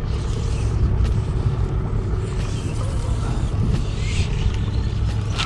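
Yamaha 75 hp outboard motor idling with a steady low rumble, with some faint clicks and light hiss over it.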